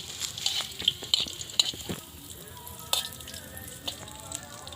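Hot oil sizzling and crackling as food fries in a pan, with many sharp pops in the first two seconds, then a steadier sizzle with occasional pops.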